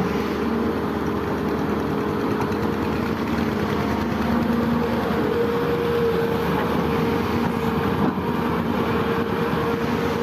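Heavy machinery's diesel engine running steadily, with a whine held over it that fades in and out.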